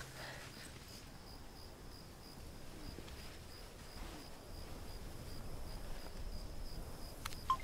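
Faint insect chirping: a steady high-pitched pulse repeating evenly over a low background hum.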